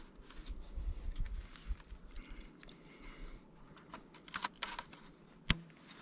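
Paracord ridge line and tarp being handled as the line is moved up a tree: soft scattered rustles and light clicks, a short burst of rustling near the end and one sharp click about five and a half seconds in.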